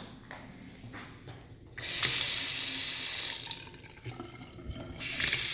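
Bathroom faucet running into a Kohler sink in two spells: about two seconds of water starting roughly two seconds in, then running again near the end.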